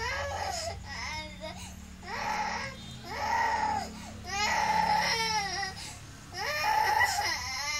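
A young girl crying in a series of high-pitched, drawn-out wails, about six of them, each around a second long with short breaks between.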